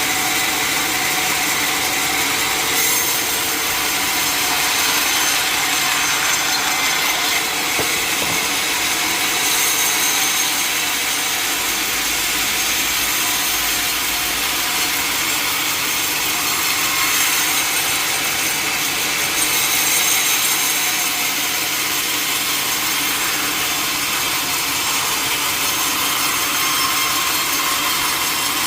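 Sawmill saw cutting through a large mahogany log, a steady, unbroken saw noise.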